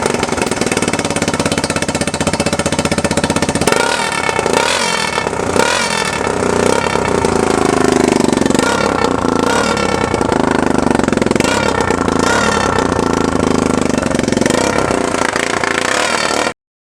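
Yamaha Timberwolf 250 ATV's single-cylinder four-stroke engine running through a homemade straight-pipe exhaust with a new tip, its pitch rising and falling as the throttle is blipped. It has a raspy edge from an exhaust leak where the pipe joins the header. The sound cuts off suddenly near the end.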